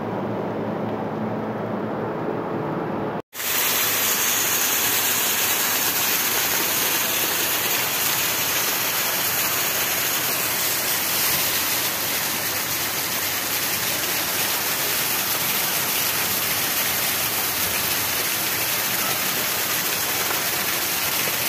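Heavy rain falling on a paved street, a dense, steady hiss. The first three seconds hold a duller, lower rushing noise that cuts off abruptly before the rain begins.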